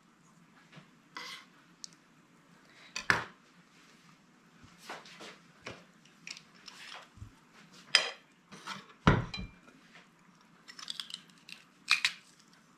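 Scattered knocks and clinks of kitchen utensils: a kitchen knife tapping and scraping against a glass bowl and being laid on a wooden chopping board, then a metal garlic press being handled near the end.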